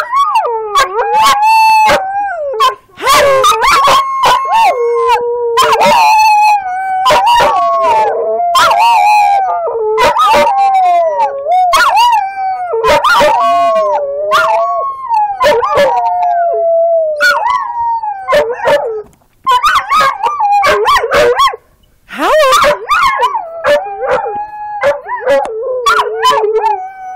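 Border collies howling together: long, wavering howls that slide up and down in pitch and overlap one another, broken by a couple of short pauses toward the end.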